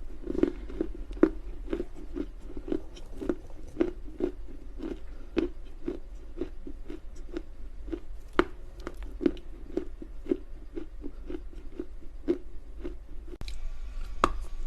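Chinese loess clay being chewed: steady, rhythmic crunching, about two chews a second.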